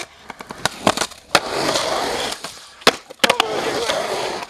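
Skateboard rolling across a concrete bowl: a steady rolling noise of the wheels on concrete, broken by several sharp clacks of the board.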